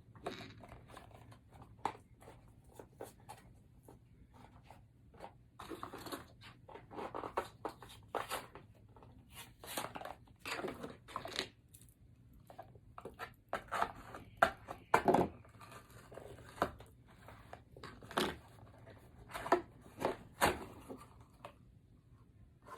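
Blind-box toy packaging being torn open and crinkled by hand: a string of irregular rustles and rips, busier and louder in the second half.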